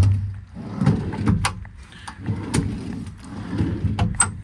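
Metal tool drawers in a truck service-body compartment being slid open and shut, giving a run of clunks and rattles on their slides.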